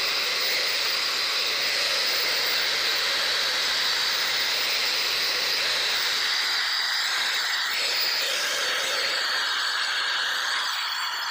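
Corded angle grinder running steadily with its cleaning wheel against a steel upper control arm, grinding rust and grime off the A-frame: a constant motor whine over a rasping noise.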